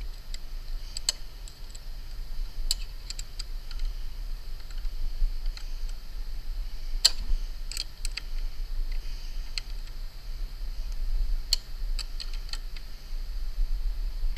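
Scattered light clicks and metal taps at irregular intervals as a hand handles a galvanized steel chimney roof-support plate and pipe fittings, over a low steady rumble.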